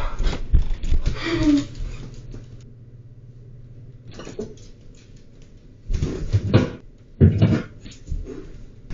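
Thumps and handling noises of someone moving about a kitchen at the fridge, heard through a security camera's microphone over a low steady hum. There are a few short, loud knocks and rustles after a quiet stretch.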